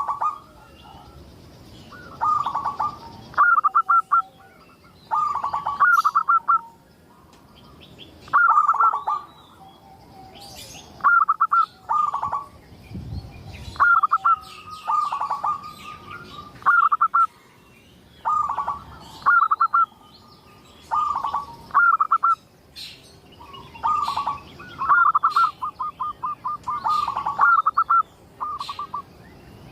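A zebra dove (perkutut) singing its cooing song: short phrases of quick, clipped notes, repeated every second or two. Fainter, higher chirps from other small birds sound in the background.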